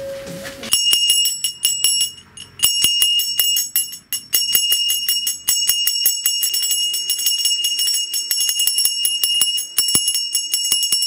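Small brass hand bell (ghanti) rung rapidly and continuously during an aarti, giving a bright, high ringing, with short breaks about two and four seconds in.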